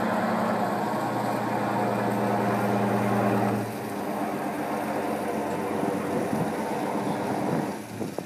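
Fishing boat's diesel engine running as the vessel moves slowly along the wharf, with water splashing from its side discharge into the harbour. The engine's steady hum drops away about a third of the way in, and the whole sound falls off near the end as the boat passes.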